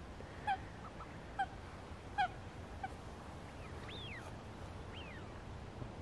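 Faint waterbird calls: four short, pitched calls in the first three seconds, then two thin calls that fall steeply in pitch, one about four seconds in and one about five seconds in.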